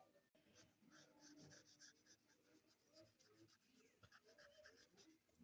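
Faint scratching of a drawing tool on paper in quick, repeated short strokes.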